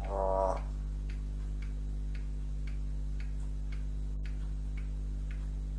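Faint, even ticking, about two ticks a second, over a steady low hum. A brief pitched, voice-like sound opens it.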